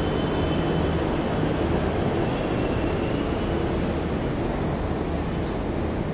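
Delhi Metro train running along the platform and moving off. Its steady rumble carries a faint high whine and slowly fades.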